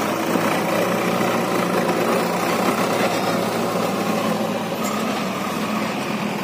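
Swaraj 744 FE tractor's three-cylinder diesel engine running steadily under load as it pulls a trolley heaped with soil.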